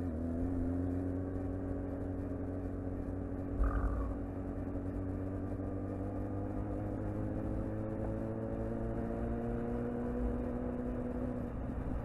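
Inline-four sportbike engine running at steady cruise, its pitch creeping slowly upward as the bike gathers speed, over road and wind rumble. The engine tone drops away near the end, and there is a short thump with a brief squeak about four seconds in.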